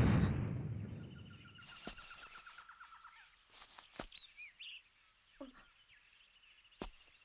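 The tail of a loud boom dies away over the first second, leaving a quiet forest with rapid bird trills and scattered chirps. A few sharp knocks come near the end.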